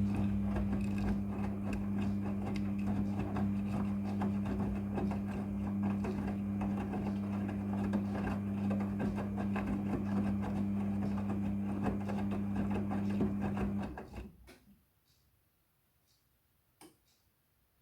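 Midea front-loading washing machine running: a steady, even-pitched hum over a busy rattling noise, which dies away with about four seconds left.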